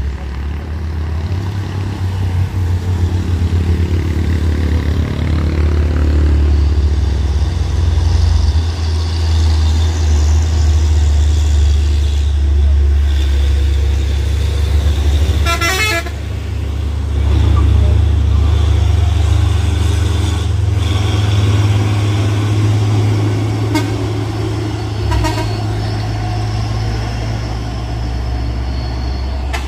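Heavy vehicle engine running close by with a steady low rumble, and a short horn toot about halfway through.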